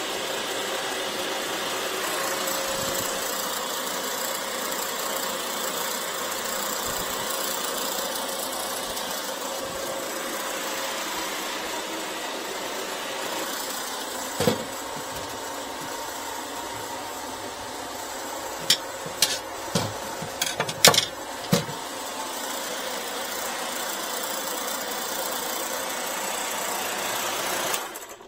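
Refrigerant recovery machine running steadily, drawing refrigerant out of the refrigerator's sealed system, then shut off suddenly near the end. A few sharp knocks come about halfway and again in a quick cluster a few seconds later.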